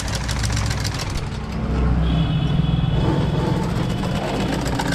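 Sewing machine stitching at speed, the needle and feed clattering rapidly. Partway through, the sound shifts from a foot-treadle sewing machine to an industrial sewing machine driven by an electric motor, with a louder steady motor hum.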